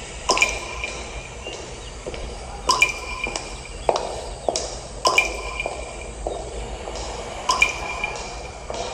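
Sparse runway show music made of sharp, ringing drip-like clicks repeating about every two and a half seconds, with softer clicks between.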